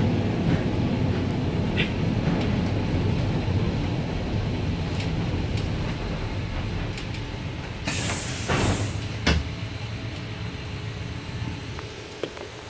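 Streetcar rumbling along its rails, the running noise fading as it slows and comes to a stop at a platform. About eight seconds in there is a short burst of hiss, then a sharp knock.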